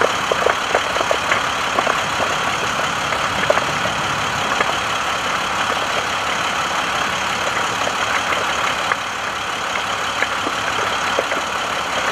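Burning brush and grass crackling in irregular pops over a steady rushing noise.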